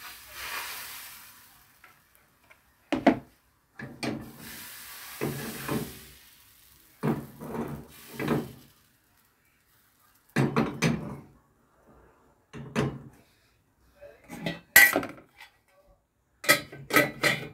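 Crepe batter sizzling briefly in a hot nonstick frying pan, followed by a series of sharp knocks and clatters of the pan and utensils on the stove, the loudest about fifteen seconds in and a quick cluster near the end.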